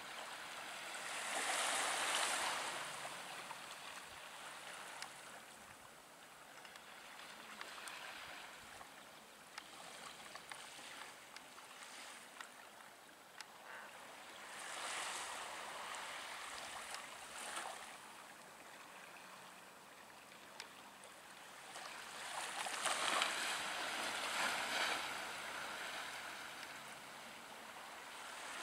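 Small waves washing onto the shore with a steady hiss. The wash swells near the start, about halfway through, and again near the end.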